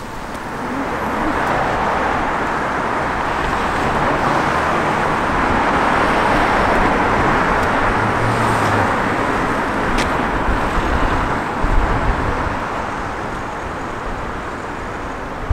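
City street traffic: a steady wash of cars driving past on a wide road, swelling up about a second in and holding.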